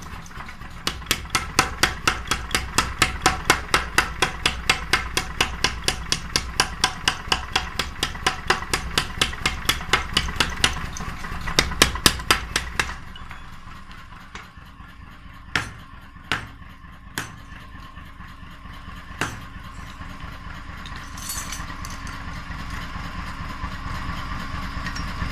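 Hammer blows on metal: a fast, even run of strikes, about three or four a second, over a low steady hum for roughly twelve seconds. The run and the hum stop together, and four separate blows follow.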